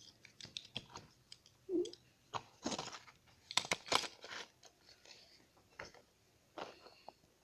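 Small plastic glitter pots from a slime kit being handled and opened: a scatter of light plastic clicks and taps, busiest about halfway through.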